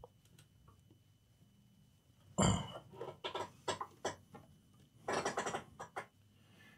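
Handling noises on a workbench: near silence, then a sudden thump about two and a half seconds in, followed by irregular knocks and rustles as the power cables and the graphics card are handled.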